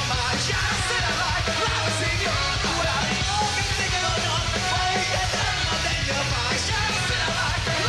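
Ska band playing live: shouted vocals over a steady bass line and drums with cymbals.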